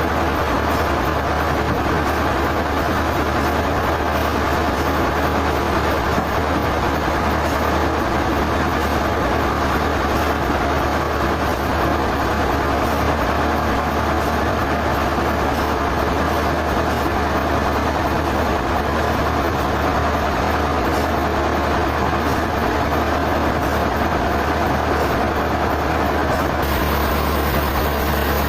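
Sawmill machinery running steadily, a dense mechanical noise over a constant low engine hum, with a slight change in the sound near the end.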